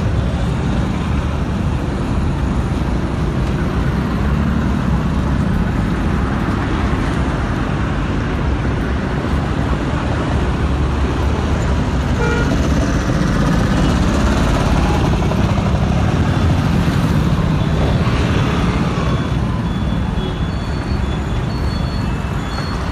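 Steady busy-street noise of road traffic, with a few short high beeps near the end.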